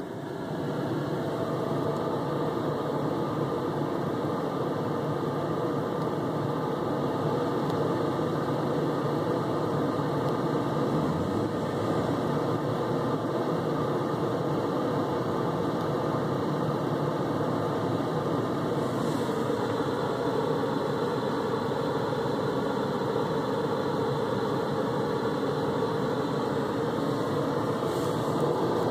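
2007 Jaguar XKR's supercharged 4.2-litre V8 idling with a steady mechanical drone, a noise the owner suspects points to a bad alternator.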